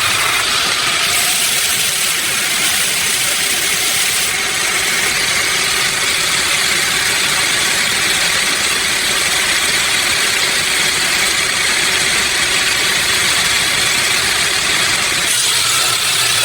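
Sawmill machinery running steadily: an even mechanical din with a strong hiss, holding the same level throughout.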